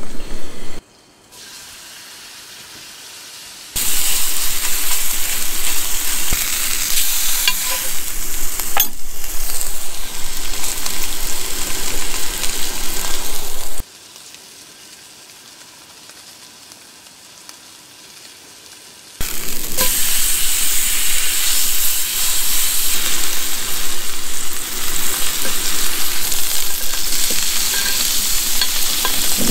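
Ribeye steak sizzling in butter in a hot cast iron skillet, a dense, steady hiss. It drops twice to a much quieter background for a few seconds before the sizzle comes back.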